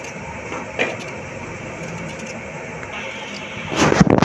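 Kitchen knife cutting slices from a peeled raw potato held in the hand, the slices dropping onto a plastic tray. There is one sharp click about a second in, and a quick run of loud knocks and clatter near the end, over a steady background hum.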